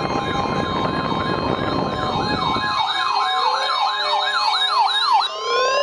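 Electronic siren wailing in quick up-and-down sweeps, about three a second, speeding up after about four seconds and breaking into rising glides near the end. A steady tone is held underneath. A rushing noise under the siren stops about three seconds in.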